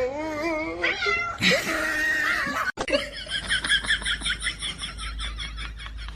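A cat yowling in long calls that waver up and down in pitch, then a harsh hissing burst. After a sudden cut, a different high-pitched sound pulses quickly and evenly, about five times a second.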